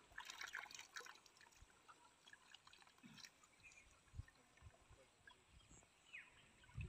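Faint scattered splashes and trickles of water as a fishing net is hauled through shallow, muddy pond water.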